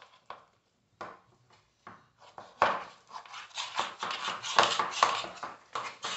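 Hands kneading and squishing soft homemade play dough in plastic bowls, with fingers rubbing and scraping against the bowl sides. It comes as a few scattered strokes at first, then a dense run of squishing and scraping from about two and a half seconds in.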